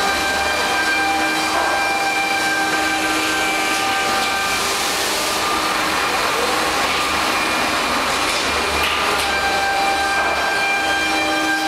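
HOMAG CNC panel-processing machinery running: a steady, dense machine noise with several steady whining tones that drop out around the middle and come back near the end.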